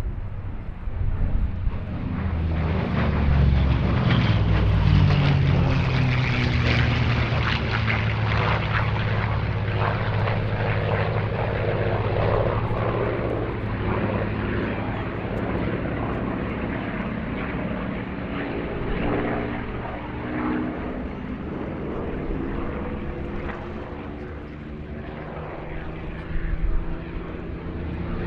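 WWII piston-engined propeller warbirds flying past in display, the engine sound swelling about a second in, staying loud for several seconds, then easing off, with the engine notes sliding down in pitch as they pass.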